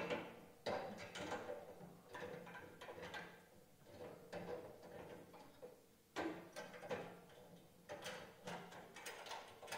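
Faint, irregular knocks, clicks and scrapes of metal camp kitchen parts being handled and fitted together, over a low steady hum.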